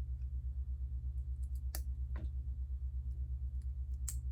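A few light, sharp clicks of plastic Lego pieces being handled, over a steady low hum that wavers quickly and evenly.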